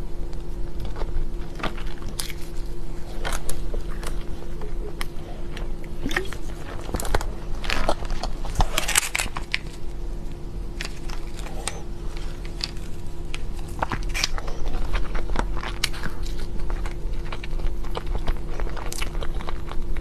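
Close-miked biting and chewing of chocolate cake: wet mouth sounds with many crisp clicks and crackles, and a denser run of crackling around the middle. A steady low hum sits underneath.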